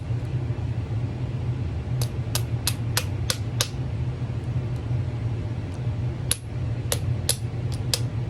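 Hammer rapping the side of a padlock in two quick runs of sharp metallic taps, about three a second, jarring the spring-loaded locking lever to pop the shackle open. A steady low hum runs underneath.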